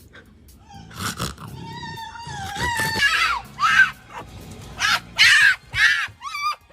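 High-pitched wavering vocal cries: a long, wobbling held note, then a run of short, arching yelps.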